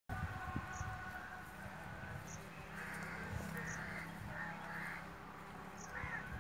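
Birds calling outdoors: a series of short, harsh caw-like calls begins about two and a half seconds in and repeats every half second or so, over a low steady hum.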